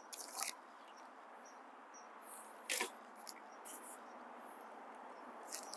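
Cardboard and paper packing being handled and pulled off bicycle handlebars: a handful of short crinkles and rustles over a faint steady hiss.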